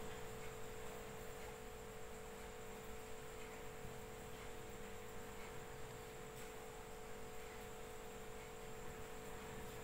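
Faint steady hum: one held tone with a weaker higher one, over low hiss.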